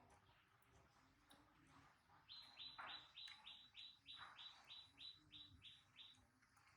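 A bird calling: a quick, even run of about a dozen short, high chirps, each dipping slightly in pitch, starting about two seconds in. It is faint.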